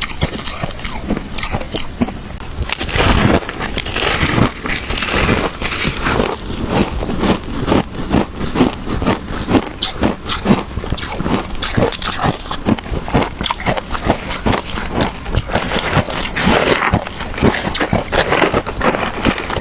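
Crunchy shaved ice with matcha being bitten and chewed close to the microphone: a dense, unbroken run of loud, crackling crunches.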